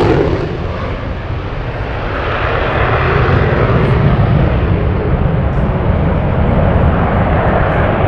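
Jet noise from a USAF F-35A Lightning II's Pratt & Whitney F135 turbofan in afterburner as the fighter climbs away. The high hiss drops off within the first second, leaving a loud, steady deep rumble.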